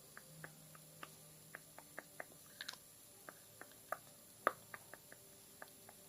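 Slow ASMR tapping and dripping from a dropper: a run of small, sharp, irregular ticks, about three a second, one noticeably louder about four and a half seconds in.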